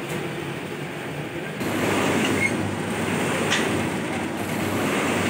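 Kerupuk slicing machine running, its circular blade cutting through logs of cracker dough: a steady mechanical running noise that gets louder about one and a half seconds in.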